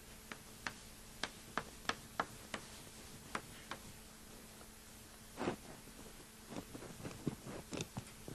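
Chalk tapping on a blackboard as an equation is written: about nine sharp taps over the first four seconds, then scattered softer knocks and scuffs in the second half, over a faint steady hum.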